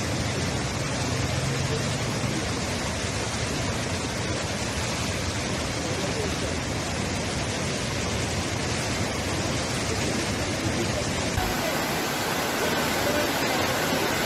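Muddy floodwater torrent rushing, a loud steady rush of water. Near the end the sound shifts slightly, to floodwater running across a street.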